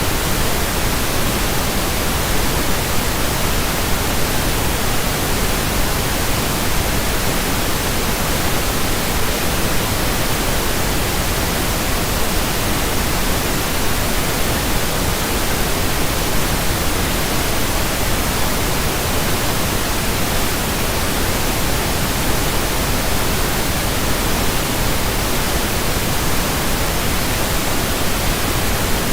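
Pink noise: a steady, even hiss spread across all frequencies, unchanging throughout.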